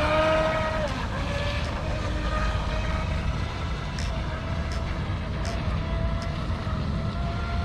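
Brushless electric motor of an F1 RC speedboat running on the water: a steady high whine that creeps slightly up in pitch, over a low rumble.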